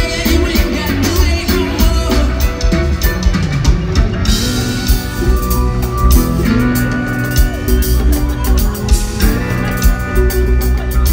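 Live reggae band playing loudly with a steady beat: drum kit, bass and guitar, amplified through a big arena sound system.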